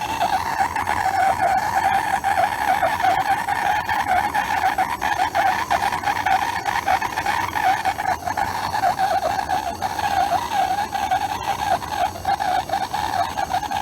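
Hand-held gas torch flame burning steadily with a fluctuating rush and light crackle, heating a dented sheet-steel truck roof before it is shrunk with ice; the sound cuts off abruptly at the end.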